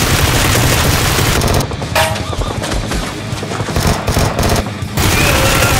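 Rapid automatic gunfire sound effects in two long bursts, one in the first second and a half and another near the end, over background music.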